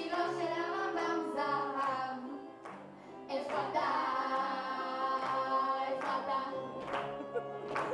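Children singing a song to upright piano accompaniment, with regular sharp hand claps in time. The singing drops away briefly about two and a half seconds in, then comes back louder.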